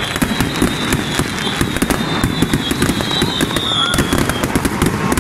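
A dense barrage of daytime fireworks and firecrackers going off, many sharp bangs every second. A high steady whistle runs through it and fades out near the end.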